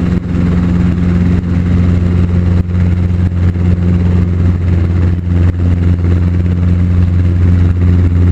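Steady low drone of a training helicopter's engine and rotor heard from inside the cabin, dipping briefly several times.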